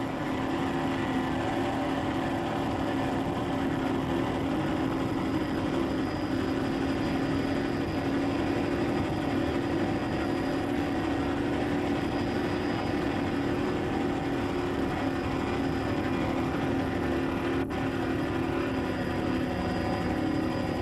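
Steady engine drone with a constant low hum that keeps the same pitch throughout.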